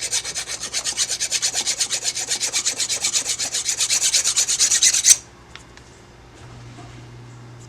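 Hand file rasping rapidly back and forth on the metal body of an old 36-volt golf cart drive motor, cleaning it down to bare metal for a good ground connection; the fast strokes stop abruptly about five seconds in.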